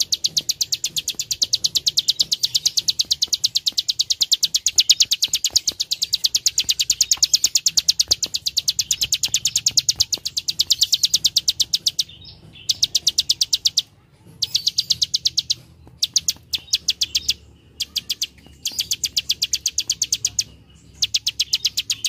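Plain prinia (prenjak sawah) giving its dry 'klik klik' call: a fast series of sharp clicks, about six a second. It runs unbroken at first and breaks into shorter bursts with brief pauses in the second half.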